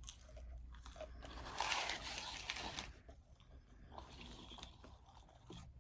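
Close-up crunching and chewing as a person bites into a Spicy Chicken McNugget's crisp breading. The crunch is loudest from about a second and a half in, then settles into quieter chewing.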